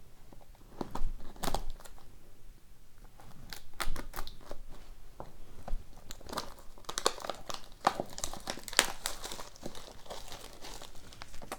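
Plastic wrapping being torn and crinkled off a sealed trading card box: irregular crackling and rustling, busier in the second half.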